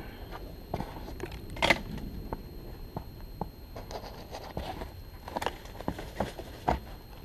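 Scattered scuffs, scrapes and small knocks of a climber's shoes and hands against a tree trunk, the sharpest scrape about a second and a half in.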